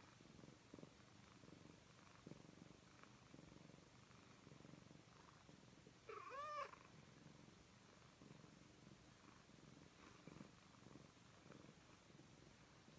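Persian cat purring faintly while kneading, with one short rising-and-falling meow about halfway through.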